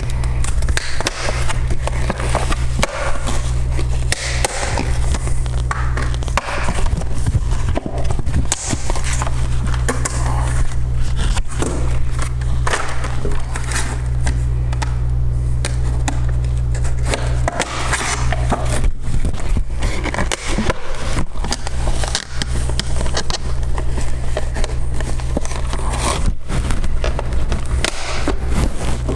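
Dense crackling, clicking and scraping of plastic packaging and computer parts being handled close to the microphone, over a steady low hum.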